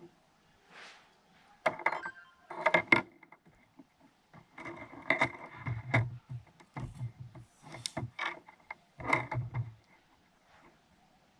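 Tool scraping and clicking on a GoPro camera during teardown: irregular clicks and short scraping bursts with brief pauses, most of them between about one and ten seconds in.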